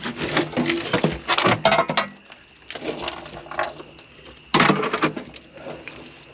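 Metal scrap parts clinking and clattering as they are handled and dropped, with a louder clatter of impacts about four and a half seconds in.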